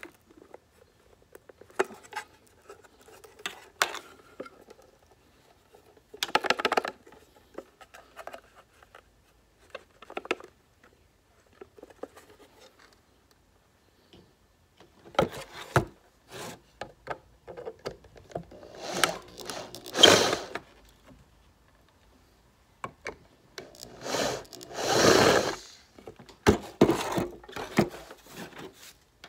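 Intermittent handling noise from hand tools and the parts of a strobe power supply being worked on: scattered clicks, knocks and short scrapes. There is a busier spell of scraping about 19 to 20 seconds in, and a longer scraping rush about 25 seconds in.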